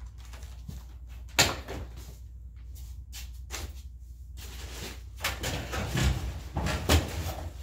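Household items being moved and set down: one sharp knock about a second and a half in, then a run of rattling and knocks near the end as an aluminium stepladder is grabbed and shifted.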